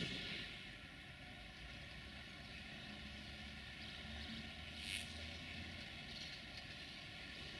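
Faint, steady rumble of a passenger train rolling away over the station tracks, with a brief sharp click about five seconds in.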